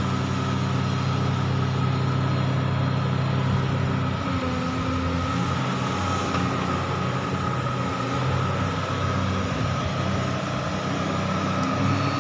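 Komatsu hydraulic excavator running under load as it digs, lifts its bucket and swings its boom: a steady diesel engine note with a thin high whine above it. The engine note shifts about four seconds in as the load changes.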